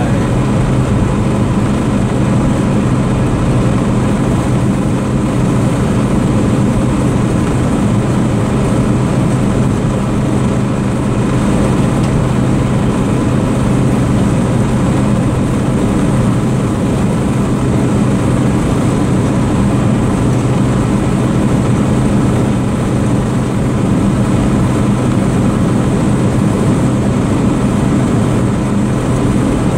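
1979 Dodge D300 pickup's 360 V8 with a four-barrel carburettor running at a steady cruise, with road noise, heard inside the cab. The engine drone holds an even pitch with no shifts or revving.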